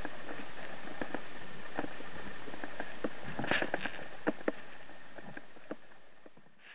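Underwater sound picked up by a diving camera: a steady hiss with scattered clicks and knocks as a speargun and a speared dentex on its line are handled, fading out toward the end.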